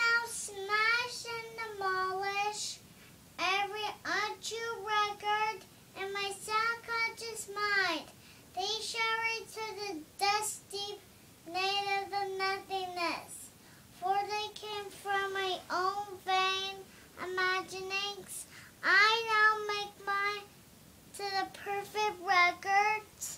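A young girl singing in a high voice, in short phrases with brief pauses between them.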